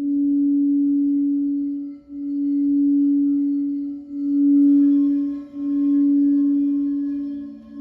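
Crystal singing bowls sounding a sustained low tone that swells and fades in slow pulses about every two seconds. About halfway, a higher ringing bowl tone joins in, and a second, slightly lower bowl tone enters near the end.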